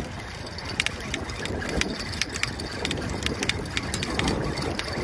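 Fishing reel ticking in quick, uneven clicks as a hooked fish is reeled in on a bent rod, over steady wind rumble on the microphone.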